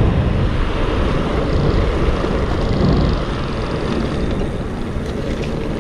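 Steady wind rushing over the microphone, with road and tyre noise, from riding an Onyx CTY2 electric bike at about 23 mph.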